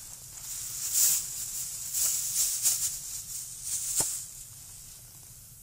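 Thin plastic bag crinkling and rustling in several short bursts as it is handled, with a sharp click about four seconds in.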